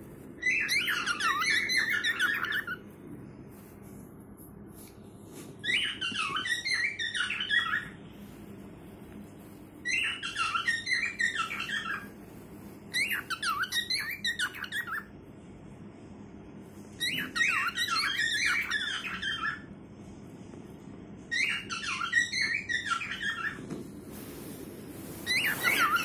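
Cockatiel singing its courtship song to its mate: short warbled phrases of quick chirps and whistles, each about two seconds long, repeated every four seconds or so.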